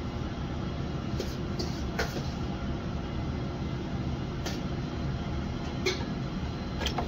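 A kitchen knife knocks sharply on a wooden butcher block a handful of times while a whole raw chicken is cut into pieces. Under it, a kitchen ventilation hood runs with a steady low noise.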